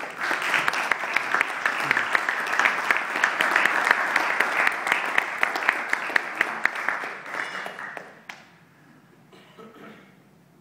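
Audience applauding for about eight seconds, with sharp single claps close by standing out from the crowd's clapping, then dying away.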